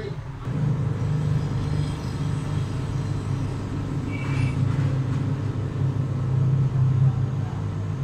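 Steady low hum, with a brief faint higher tone about four seconds in.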